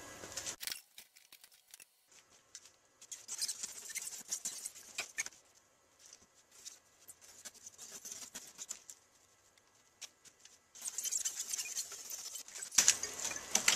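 Utility knife blade slicing along the edge of a rigid insulation foam board, beveling it at 45 degrees. It makes a scratchy crackling in three runs of a few seconds each, with short pauses between strokes.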